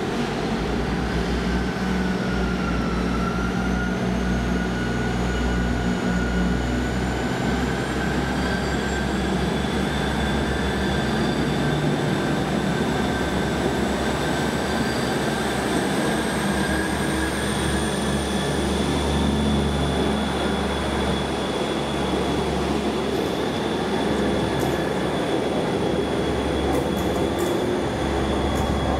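Class 158 diesel multiple unit pulling away under power, its Cummins diesel engines running with a whine that slowly rises in pitch as it gathers speed, then levels off.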